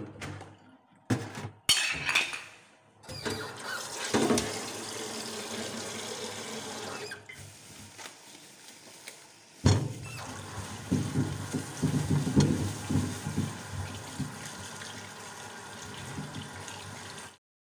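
Water running from a kitchen tap into a stainless-steel sink, splashing as hands rub and rinse under the stream. A few sharp knocks come in the first two seconds, and the water grows suddenly louder about halfway through.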